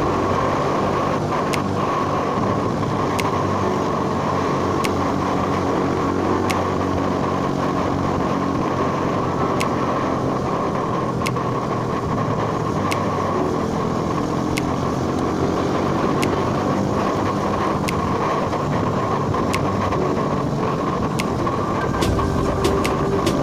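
Sport motorcycle engine running at a steady cruise, heard from a camera mounted on the bike, with road and wind noise. Faint light clicks come about every second and a half.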